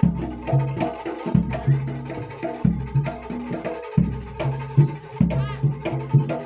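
Jaranan Dor ensemble playing: a deep jidor bass drum struck about every second and a quarter, with quick hand-drum strokes and pitched gamelan-style tones between the beats.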